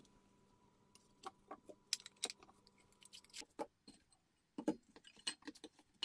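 Scattered faint clicks and clinks of a garbage disposal's metal mounting flange and plastic mounting ring being handled and fitted together by hand.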